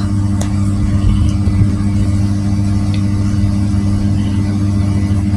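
A steady low hum, with a few faint scrapes and ticks of a metal spatula stirring grated coconut and palm sugar as they dry-roast in a frying pan.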